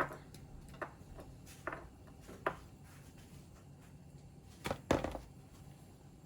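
Tableware clinking and knocking at a dinner table: a few scattered sharp taps, with a louder cluster of clinks near the end.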